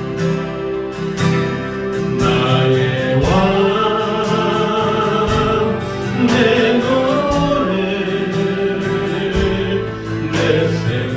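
Church praise band performing a worship song: guitar and band backing with a steady beat. Voices start singing about three seconds in.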